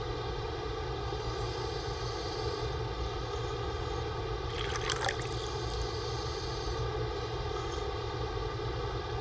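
Steady machine hum holding a constant pitch, with a brief noisy burst about five seconds in.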